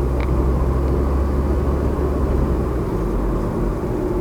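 2001 Volvo S40's 1.9-litre turbocharged four-cylinder engine running steadily, a low drone with no revving. The engine has a slight misfire.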